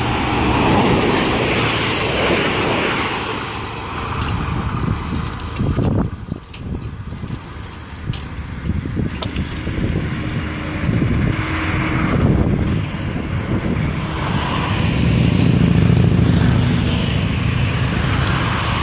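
Class 460 electric multiple unit passing close by at speed: a loud, steady rush of wheels on rails and moving air, with a few sharp clicks about six seconds in.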